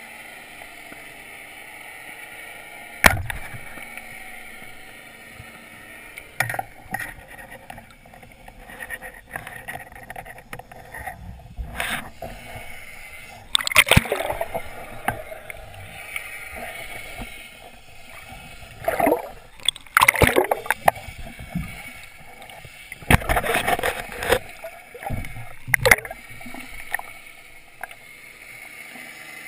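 Underwater sound as picked up through a camera housing: a steady hiss of moving water, a sharp knock about three seconds in, and several bursts of bubbling and gurgling later on as divers swim and exhale nearby.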